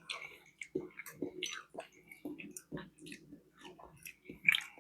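A person chewing food close to the microphone: a string of short, irregular mouth smacks and clicks, a little louder near the end.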